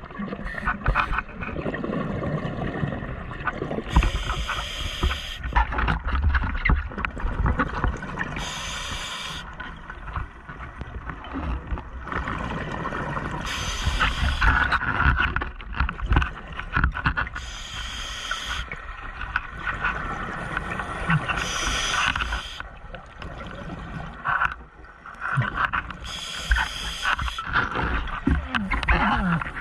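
Scuba diver breathing through a regulator underwater: a short hiss with each inhale, about six breaths some four to five seconds apart, with the rumble and gurgle of exhaled bubbles in between.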